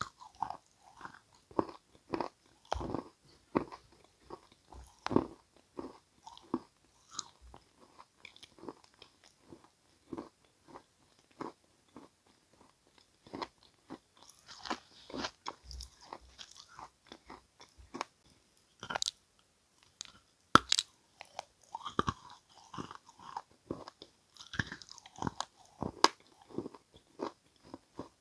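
A person biting and chewing edible red clay and crumbly mineral pieces close to the microphone: irregular crisp crunches, several a second, with brief pauses between bites.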